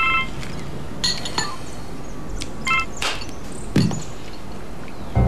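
Mobile phone keypad beeps: short electronic tones as keys are pressed, at the start and again about two and a half seconds in, with several light clicks and clinks between them.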